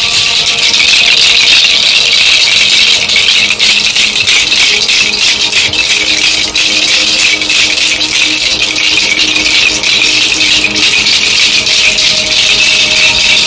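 Handheld ASMR rattles and jingling metal trinkets shaken continuously, a loud, dense hissing rattle full of rapid small clicks.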